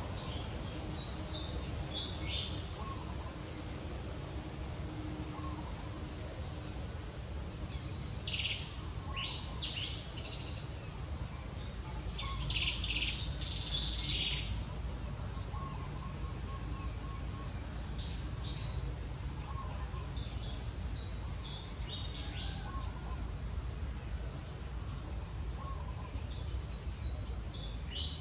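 Birds calling in short, high, chirping phrases that step down in pitch, repeated every few seconds and busiest in the middle. Beneath them runs a faint steady high insect buzz over a low background rumble.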